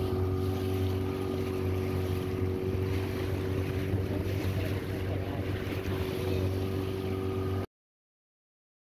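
Outboard motor on a small open boat running steadily under way, with water and wind noise rushing past; the sound cuts off abruptly to silence near the end.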